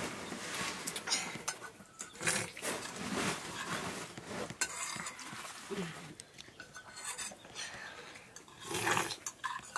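Spoons and a fork scraping and clinking irregularly against metal bowls as children eat noodles.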